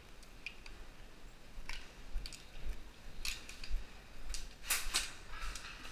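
A handful of short, sharp clicks and snaps scattered a second or so apart, with a louder pair about five seconds in.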